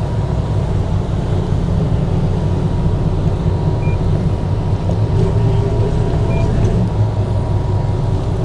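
Twin inboard diesel engines of a Sunseeker 76 motor yacht idling in gear during slow close-quarters docking: a steady low rumble with a faint hum above it.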